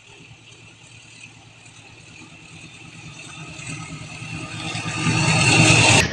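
Indonesian KAI diesel-electric locomotive hauling a passenger train as it approaches, its engine and wheel-on-rail noise growing steadily louder as it nears. The sound drops sharply just as the locomotive reaches the crossing, near the end.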